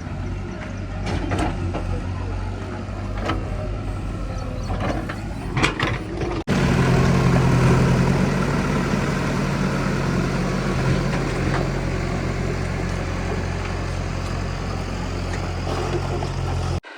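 Diesel engine of a heavy farm or construction machine running steadily. About six seconds in the sound cuts abruptly to a louder, deeper engine note, which cuts off again near the end.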